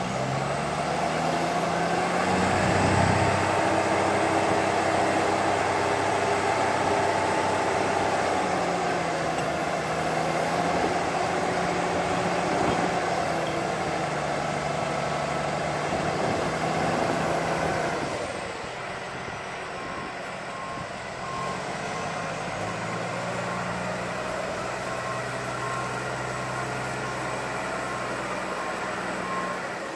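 A heavy vehicle's engine running steady and loud, easing off to a lower level about 18 seconds in. Towards the end a reversing alarm sounds in regular beeps.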